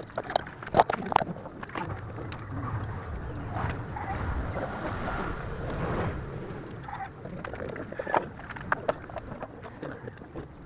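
Scattered metallic clinks and knocks of hand tools and parts during a motorcycle engine top overhaul, with a steadier rushing noise from about three to six seconds in.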